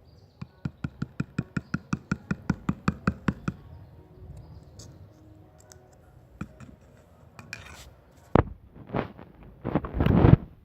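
Quick, even tapping, about twenty sharp taps at some six a second, then louder irregular knocks and scraping near the end, as gouache paint is worked out of its pot into white glue in a basin for slime.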